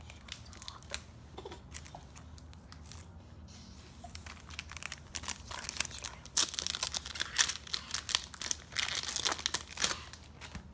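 Foil trading-card pack being torn open and crinkled, a dense crackling from about six seconds in until shortly before the end. Before that, a few light clicks of cards being handled.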